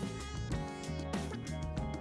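Background music with plucked and strummed guitar and a steady beat.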